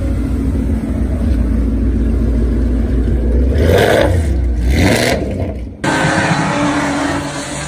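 Ford Mustang GT's 5.0 V8 rumbling as it drives off, with two short, louder blips of the throttle about four and five seconds in. Near the end, after an abrupt cut, another car's engine and road noise takes over.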